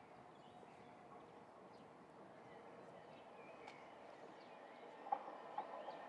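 Quiet outdoor background until, about five seconds in, a train grows louder as it comes by, its wheels clacking over the rails.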